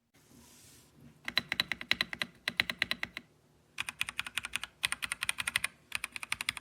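Fast typing on a DIERYA x TMKB T68 magnetic-switch mechanical keyboard: three quick runs of even key clicks, about ten a second, with short pauses between them. A brief soft hiss comes just before the first run.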